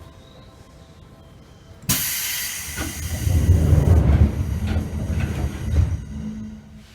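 Pneumatic door engines of a Seibu 2000-series train car working: a sudden burst of air hiss about two seconds in, then a heavy rumbling with knocks as the doors slide, ending with a short low hum. The door operation makes an abnormal noise, which the uploader takes as a sign the doors are due for maintenance.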